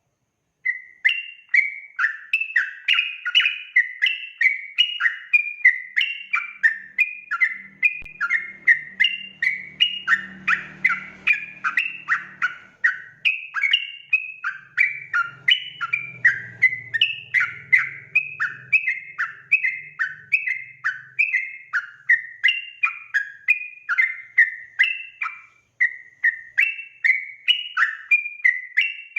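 Yellow-vented bulbul (trucuk) singing a rapid, unbroken string of short, bubbling up-and-down notes, the fast continuous "ropel" song used to lure wild bulbuls into answering.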